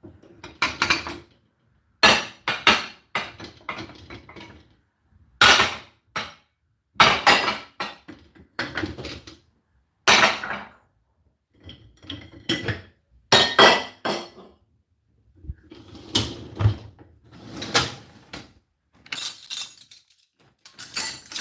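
Washed dishes, glasses and cutlery clinking and clattering as they are handled and set down, a dozen or so separate knocks with short ringing, coming irregularly.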